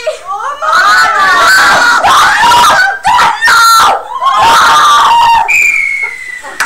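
Teenage girls screaming and shouting loudly in high, sliding voices, in several loud bursts; near the end a single long high tone held, falling slightly in pitch.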